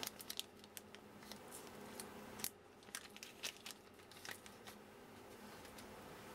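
Small clear plastic parts bag crinkling as it is handled, a string of faint, irregular crackles and ticks.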